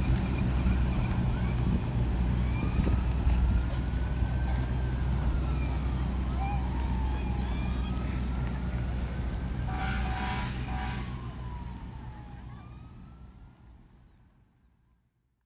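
Emergency vehicle sirens wailing in slow rising and falling sweeps over a low steady rumble, with a horn blast about ten seconds in. The sound fades out near the end.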